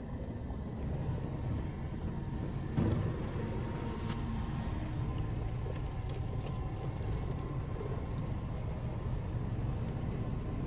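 Christ automatic car wash heard from inside the car's cabin: the machine runs with a steady low rumble while water sprays over the car. A single louder thump about three seconds in.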